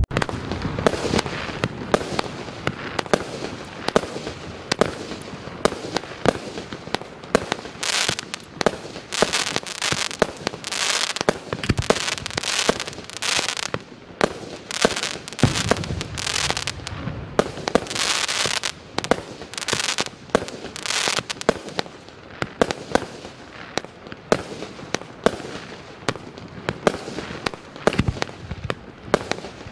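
A 49-shot, 20 mm Klasek Signature 4920 firework cake firing its shots in quick succession, about two a second, each a sharp launch or burst report. Spells of dense crackling from crackle-star effects run between the reports.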